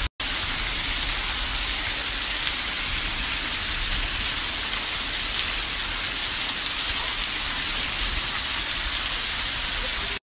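Rain falling steadily on rock and wet ground, an even hiss with a low rumble underneath. It cuts out for an instant just after the start.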